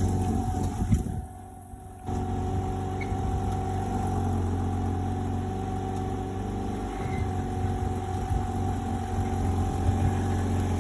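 Inside the cabin of a Porsche 987 on the move: steady flat-six engine and road noise with a grinding from the rear passenger side that sounds like a failing tyre. The sound drops sharply for about a second, about a second in, then carries on steadily.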